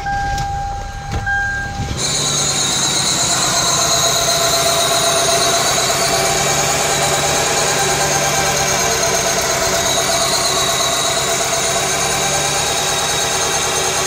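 A steady electronic warning chime from the car, then about two seconds in the 1999 Toyota Camry's 2.2L four-cylinder engine is heard loud and steady at idle. It is misfiring on the cylinder now holding the fouled spark plug.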